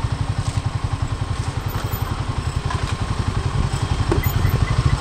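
Royal Enfield Himalayan 450's single-cylinder engine and exhaust running steadily with an even, rapid beat.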